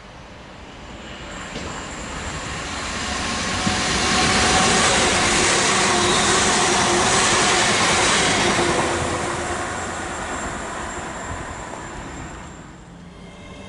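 ScotRail electric multiple unit passing through the station: a rushing of wheels on rail that builds up, stays loudest for several seconds in the middle, then fades away near the end.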